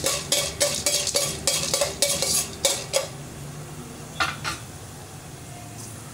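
A spoon stirring and scraping a tempering of mustard seeds, cumin, dals, pepper and fenugreek in hot oil in a stainless steel pan. Quick clinks and scrapes come thick over the first three seconds, then a couple more past the middle, while the oil sizzles softly.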